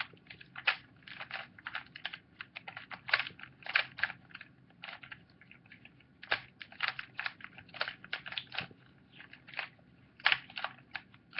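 Plastic layers of a pillowed 5x5 puzzle cube clicking and clacking as they are turned quickly, in short irregular runs of clicks with brief pauses between.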